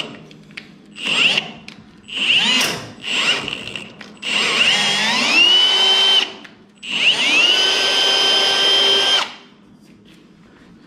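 Cordless drill driving a thread tap into thin frame tubing: several short bursts on the trigger, then two longer runs of about two seconds each in which the motor whine rises and then holds steady.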